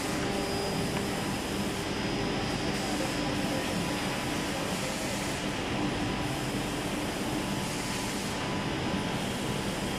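F586CH edge banding machine running: a steady, even machine noise with several constant tones held through it.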